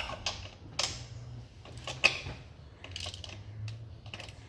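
Ratcheting wrench clicking irregularly, a few sharp clicks, as spark plugs are tightened into the engine, over a low steady hum.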